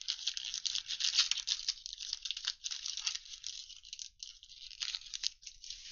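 Foil wrapper of a 2021 Panini Illusions football card pack being torn open and crinkled by hand: a dense crackling rustle that is loudest about a second in.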